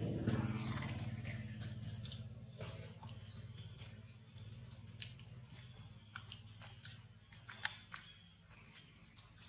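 Dry leaf litter crackling in scattered sharp clicks as a baby macaque moves over it, the sharpest about five seconds in and again near eight seconds. A low engine hum fades away over the first few seconds.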